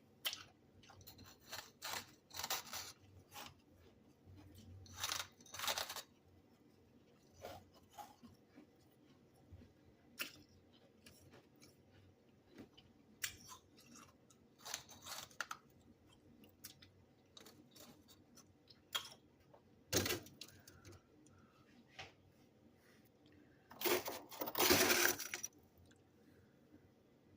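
Freezer frost crunched between the teeth in irregular bites, with a longer, louder crunching spell near the end.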